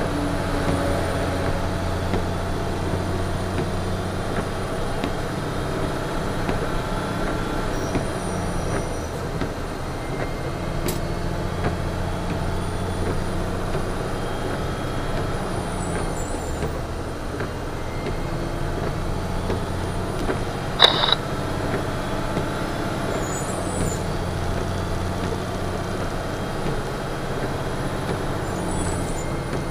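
Western Star semi truck's diesel engine running steadily while descending fully loaded in third gear direct, heard from inside the cab as a continuous low drone. About two-thirds of the way through there is one brief sharp sound.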